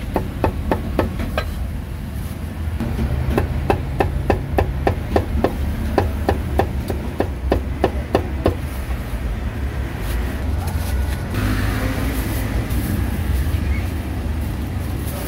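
Meat cleaver chopping roast meat on a wooden chopping block: a run of sharp chops at about three a second, with a short pause about two seconds in, stopping after about eight seconds. A steady low rumble runs underneath.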